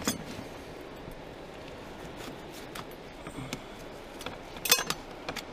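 Light handling sounds of a fillet knife and mackerel fillets on a plastic cutting board: a few soft taps and scrapes, with a sharper cluster of clicks about three-quarters of the way through, over steady background noise.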